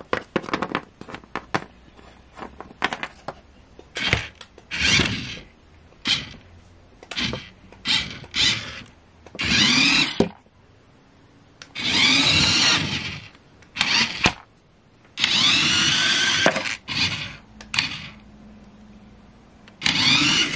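Plastic toy car being pushed along a toy road mat, its wheels whirring in repeated bursts of a second or two, with clicks and knocks of plastic toys being handled in between.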